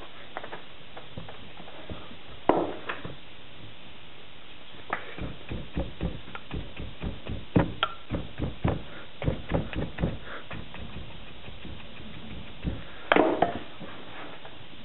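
Hands packing and patting molding sand into a wooden casting flask: a run of soft, irregular thumps, with a few louder, sharper knocks about two and a half seconds in and again near the end.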